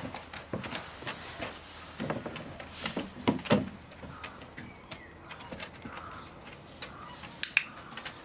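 Border collie's paws and claws tapping on wooden deck boards as it moves about, in irregular light clicks, with a few louder knocks about two to three and a half seconds in and two sharp clicks near the end.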